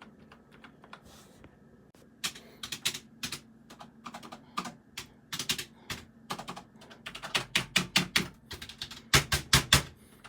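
Typing on a computer keyboard: runs of quick key clicks at an uneven pace, starting about two seconds in, with the loudest burst near the end.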